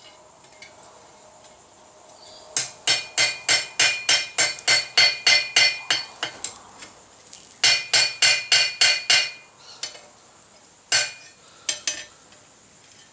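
Hand hammer striking metal to head a mild-steel rivet in a header tool, each blow ringing: a fast run of about five strikes a second for nearly four seconds, a pause, a shorter run, then a few single blows.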